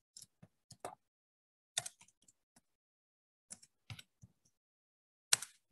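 Scattered soft clicks and taps, about a dozen at uneven intervals, with dead silence between them as the video call's noise suppression cuts in.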